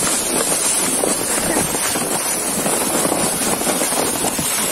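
Steady crunching and scraping of footsteps moving over snow-covered ice, with wind rushing on the microphone.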